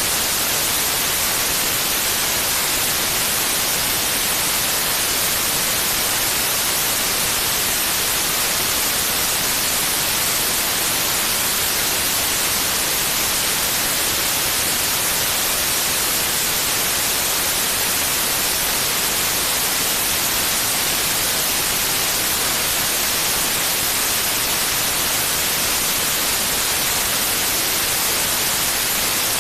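Steady white noise: an even, unchanging hiss, brightest in the high range, with no breaks or changes.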